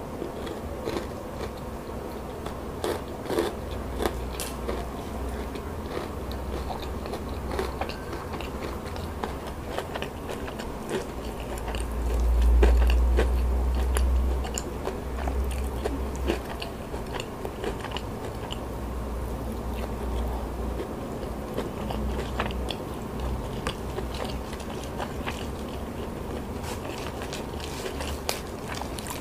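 A person chewing and crunching food with many small wet clicks, close to the microphone as in ASMR eating, with a brief low rumble about halfway through.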